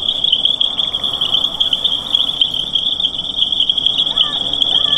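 Night-time chorus of frogs and insects: a dense, steady high-pitched trilling, with a couple of short calls swooping up and down near the end.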